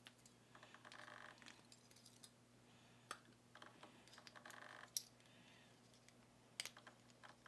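Faint small metal clicks and short scraping rattles from driver pins and springs being worked out of a disassembled Abus 72/40 padlock, with sharp clicks about three, five and six and a half seconds in.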